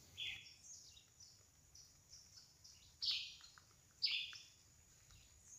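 Wild birds calling in forest: three louder short calls, near the start, about three seconds in and about four seconds in, with fainter chirps between.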